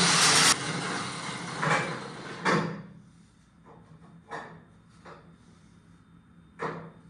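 Steel tubing scraping against metal for about two and a half seconds, loudest at the start, as a coped bar is worked into place; then three separate light knocks of metal being handled.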